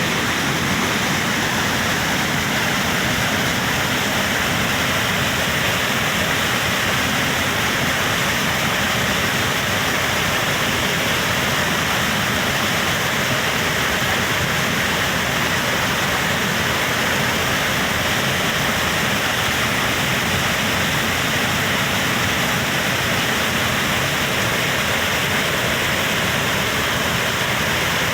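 Waterfall rushing: a steady, loud roar of falling water that does not let up.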